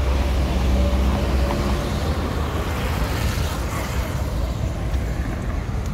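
Street traffic: a vehicle engine's low hum for about the first two seconds, then a passing vehicle's rush that swells and fades around three to four seconds in.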